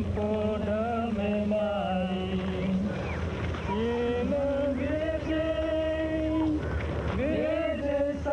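Slow, chant-like singing with long, wavering held notes over a steady low hum.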